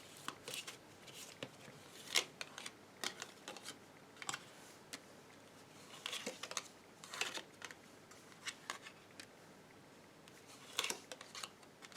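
Tarot cards being shuffled and drawn by hand: faint, irregular soft clicks and flicks of card stock.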